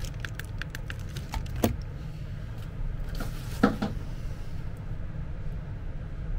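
Relays on an electric patient lift's control board clicking as the hand pendant is worked: a quick run of light clicks, then a sharper click. A duller knock follows a couple of seconds later, over a steady low hum.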